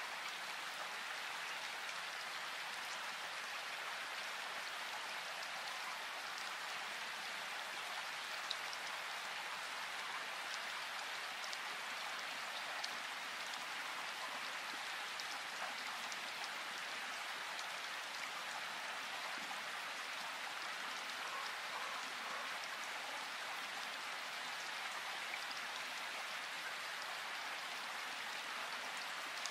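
Steady rain falling in a forest: an even, continuous hiss with scattered single drops ticking through it, a couple of them sharper than the rest.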